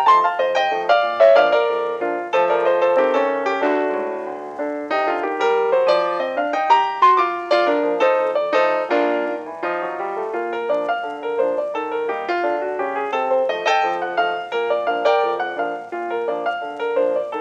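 Ragtime piano music playing, a brisk run of quick notes with a bouncing rhythm.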